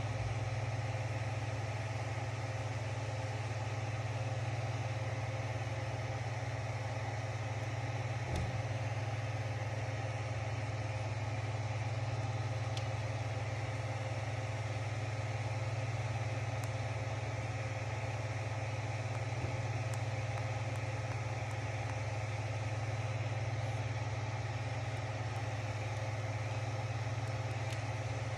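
A steady low mechanical hum with a few steady higher tones over it and several faint clicks along the way.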